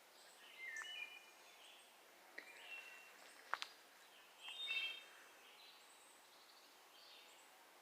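Faint outdoor background with birds calling in short, high chirps several times, and a single sharp click about three and a half seconds in.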